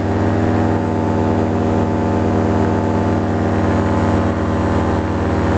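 Paramotor engine and propeller running steadily in flight, a loud, even drone.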